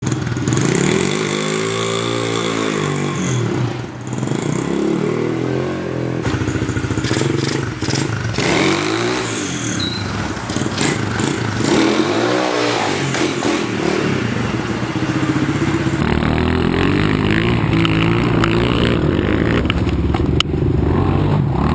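Honda XR70R pit bike's single-cylinder four-stroke engine running through its stock exhaust with spark arrestor, first with the stock 70cc motor and then with a swapped-in Lifan 125cc motor. It revs up and falls back several times. From about two-thirds of the way in, the engine is heard under steady throttle from the bike's own camera as it is ridden along a trail.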